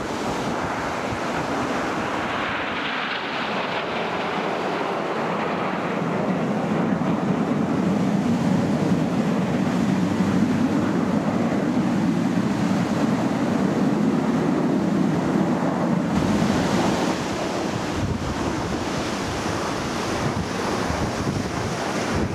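Jet roar from a nine-ship formation of BAE Hawk T1 jets with Adour turbofans, heard from the ground. A falling whine comes first, then a louder low rumble that eases a few seconds before the end. Wind noise on the microphone runs under it.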